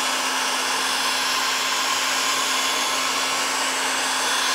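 Electric drill running steadily at slow speed with a Dremel grinding stone in the chuck, grinding the anodized coating out of a countersunk screw hole in an aluminium panel down to bare, shiny metal. A steady motor hum under an even grinding hiss.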